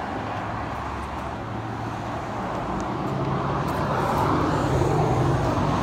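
A motor vehicle's engine and road noise, a steady low hum that grows louder over the second half.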